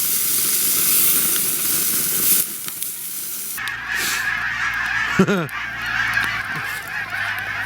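Food sizzling in a pan for the first two and a half seconds or so, then a large flock of snow geese calling continuously, a dense chorus of honks, with one nearer, falling call about five seconds in.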